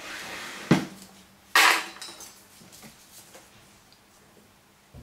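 A sharp knock just under a second in, then a short clatter of hard objects, over a faint steady hum.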